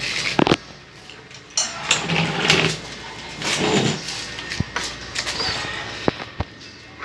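Hand tools and small metal parts being handled at a scooter's front axle: a few sharp clicks and knocks, with rustling of handling in between.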